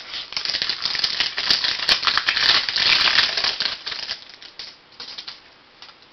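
Trading cards and their pack wrapper being handled: a dense crinkling rustle with rapid small clicks, loudest over the first four seconds, then dying away to occasional soft clicks.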